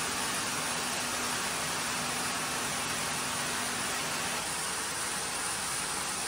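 Small reverse-osmosis desalination unit running: a steady hiss of pumped water and machinery, with a faint low hum that stops about two-thirds of the way in.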